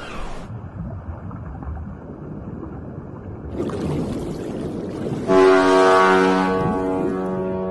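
Muffled rumbling sea noise, then about five seconds in a cruise ship's horn sounds one long, steady blast.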